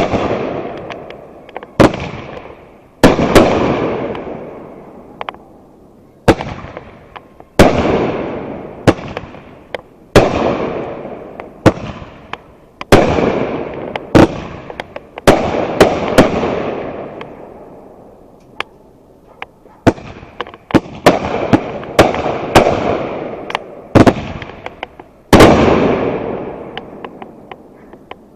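Fireworks going off one after another: a sharp bang about every one to two seconds, each trailing off over a second or two, with smaller pops in between.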